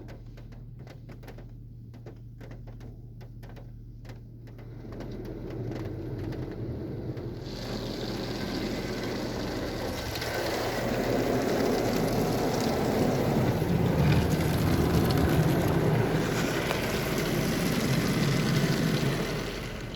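Automatic car-wash spray jets hitting the car's body and windows, heard from inside the cabin: scattered ticks over a low hum at first, then a hissing drumming that builds from about five seconds in, stays loud and steady, and eases off near the end.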